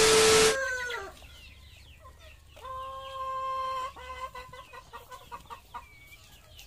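A TV-static glitch effect, a loud hiss with a steady beep, cuts off about half a second in. Chickens cluck after it, with one drawn-out call lasting about a second near the middle and scattered short clucks and peeps.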